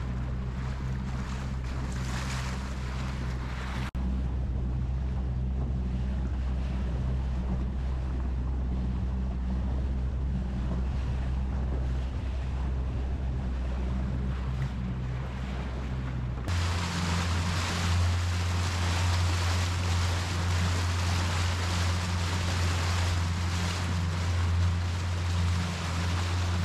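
Bass boat's outboard motor running at low speed, a steady low drone with water wash and wind on the microphone. About two-thirds of the way through, the sound changes suddenly to a higher, louder engine note with more hiss of water and wind.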